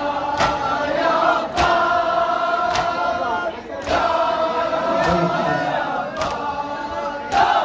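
A crowd of men chanting a Shia mourning lament (noha) together, with a sharp collective chest-beat (matam) landing in unison about every second, seven beats in all.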